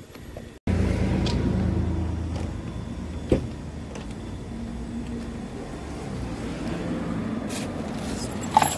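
Steady low rumble of a vehicle engine running close by, with a sharp click about three seconds in and a louder knock near the end from the car's door as someone gets into the sedan.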